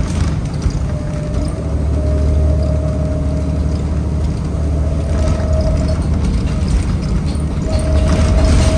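New Flyer D60LFR articulated diesel bus under way, heard from inside the cabin: a deep steady engine and road rumble with a thin whine that fades in and out, and light rattles.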